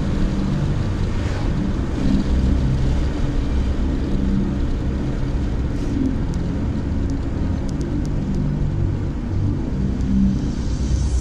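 Car driving at a steady speed, heard from inside the cabin: a continuous low engine hum and tyre and road rumble.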